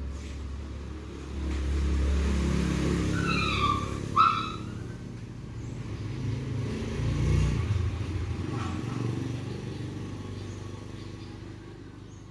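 A motorbike engine runs past, swelling up, dipping, swelling again and then fading away. Two short high yelps from the puppy come about three and four seconds in, the second the loudest.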